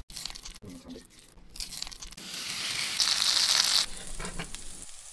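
Edited ASMR cooking sounds of a red snapper: the fish is handled in a wet spice marinade, then a hiss builds for over a second and cuts off abruptly, then comes a softer crunch as a metal spatula cuts into the grilled, charred fish.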